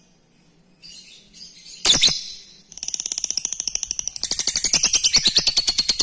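Lovebird ngekek: a few faint chirps and one sharp chirp, then from about halfway through a long, fast chattering trill of about ten notes a second that grows louder.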